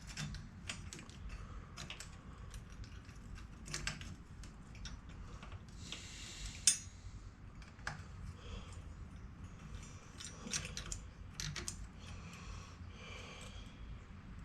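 Small metallic clicks and taps of a screw and Allen key being handled and turned, with a sharper click about six and a half seconds in and brief rubbing in between.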